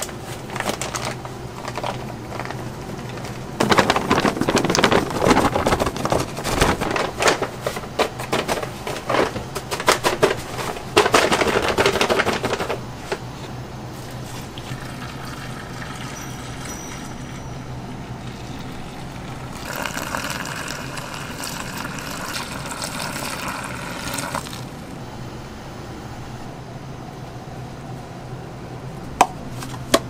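Pizza-kitchen preparation sounds over a steady low hum: several seconds of dense, irregular scraping and clattering, then a few seconds of steady rushing noise, and a few sharp knocks near the end.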